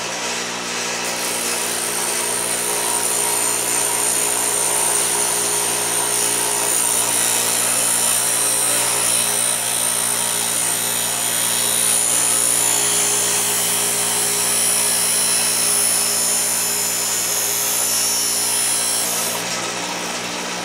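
Bench grinder running with a steady motor hum while a steel knife blade, cut from a lawnmower blade, is pressed against the wheel, adding a hissing grind from about a second in until near the end. This is stock removal, grinding the blade down to thin and reprofile it.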